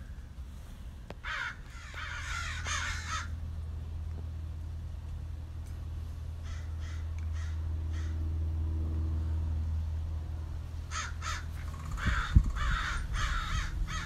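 Crows cawing in two bouts, one near the start and one near the end, with a few fainter calls in between. Under them runs a steady low rumble, and a few knocks come near the end.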